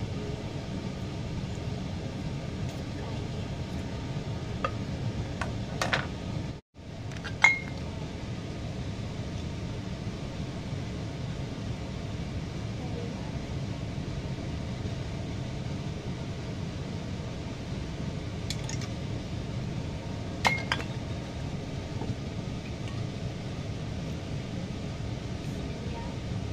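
Kitchen handling sounds: a few sharp clinks of glass sauce bottles and caps against a ceramic dish while raw chicken wings are being seasoned, two of them ringing briefly, over a steady background hum.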